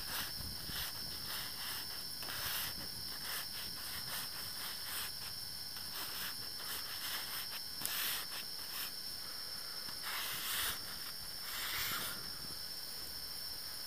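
Fingertip rubbing across the frosted fly of an MSR tent, tracing letters and a heart: a series of short scratchy swishes, the longest about three quarters of the way through, over a steady high hiss.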